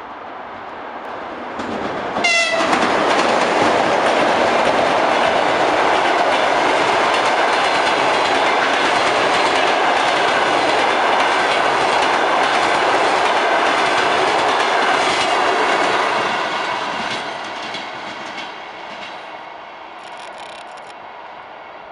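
EP2K electric passenger locomotive gives a short horn blast about two seconds in, then its train of long-distance passenger carriages rolls past with a steady rumble and the clatter of wheels over rail joints. The sound fades over the last few seconds as the train moves away.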